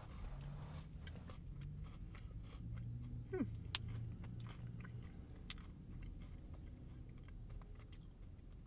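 Chewing a mouthful of peanut butter-coated cookie with chocolate drizzle, with small crunches and mouth clicks.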